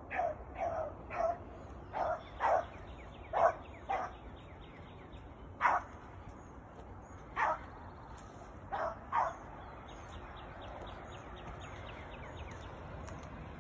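A beagle hound barking on a rabbit's track, about eleven short, sharp barks at uneven gaps, then a few seconds with no barks.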